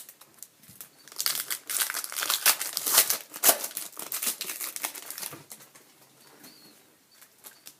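Wrapper of a 2013-14 Panini Select hockey card pack being torn open and crinkled: a dense run of crackling for about four seconds starting a second in, then trailing off into a few light rustles.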